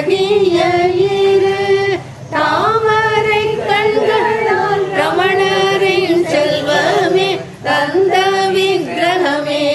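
A woman singing a Tamil devotional song to the cow mother, holding long notes with vibrato. The singing breaks off briefly about two seconds in and again near the end.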